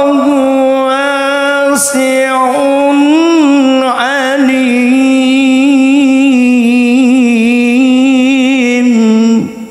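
A male qari reciting the Quran in a low register (nada rendah) into a handheld microphone, holding one long melismatic vowel with rising and falling turns and a fast vibrato. The note falls away and stops near the end.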